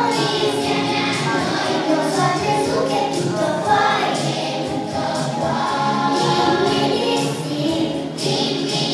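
A group of young children singing a song together with musical accompaniment, amplified through the microphones.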